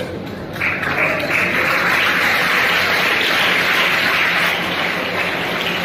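Audience clapping, starting about half a second in and going on steadily.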